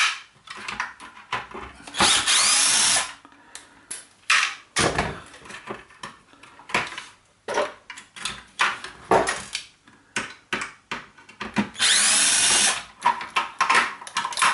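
Cordless drill-driver running in two short bursts, about two seconds in and again near the end, its pitch rising as it spins up, backing out the screws that hold the shower's circuit board. In between come clicks and knocks of plastic casing parts and screws being handled.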